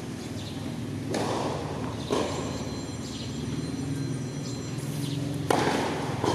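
A tennis ball is bounced on a hard court twice before a serve, then struck by the racket about five and a half seconds in, the loudest sound of all. A steady low hum runs underneath.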